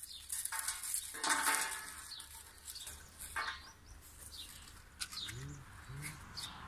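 Small dry twigs snapped by hand and dropped into a metal fire bowl, in a few short crackling, clattering bursts, while birds chirp in the background.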